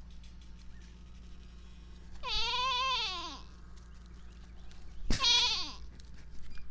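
A goat bleating twice: a long quavering call that rises and falls, then a shorter, louder one a few seconds later. These are the calls of goats that don't want to be separated.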